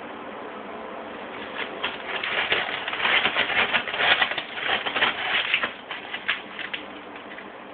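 Cat scratching and digging in the litter of a covered plastic litter box: a run of rapid, gritty scratches that starts about a second and a half in, is busiest in the middle and tails off near the end.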